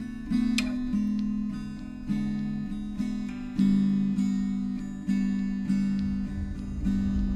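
Background music: acoustic guitar strumming chords, each chord struck and left to ring, with a low rumble coming in near the end.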